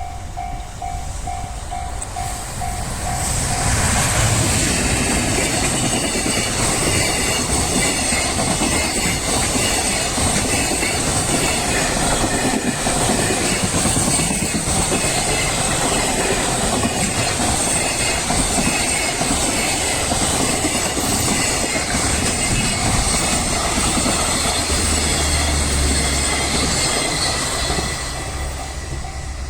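A long freight train hauled by an EF210 electric locomotive passing over a Japanese level crossing, its wheels clattering steadily for about 25 seconds. The crossing's warning bell rings at the start before the train's noise covers it, and is heard again near the end as the train fades.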